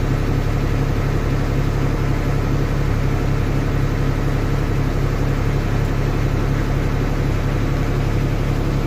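Steady, unchanging low mechanical hum of a running appliance motor or fan, with a strong low drone and a even hiss above it.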